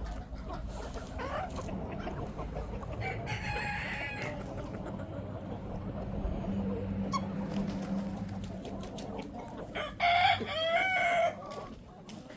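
Chickens calling and clucking, with a louder drawn-out call about ten seconds in, over a steady low rumble.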